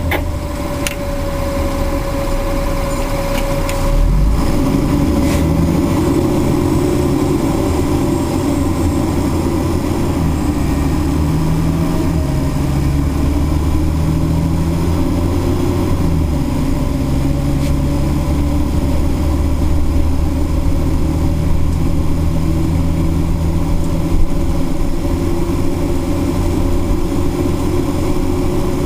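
Fire engine heard from inside its cab while under way: a steady engine drone with road noise, stepping up in level about four seconds in as it pulls.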